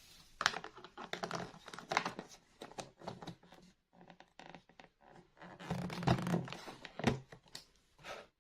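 Hands handling small plastic toys and their packaging: irregular clicks, taps and scratching, with short runs of quick clicks.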